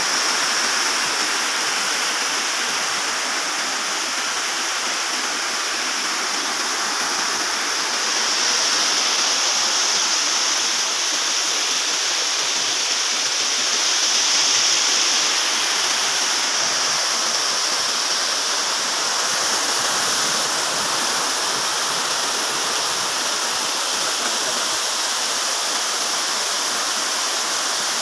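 Small forest waterfall pouring over a rock ledge into a stream: steady rushing, splashing water.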